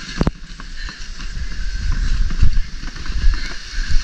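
Wind rumbling on the microphone, with irregular crunching thumps of footsteps in snow and a sharp click about a quarter second in.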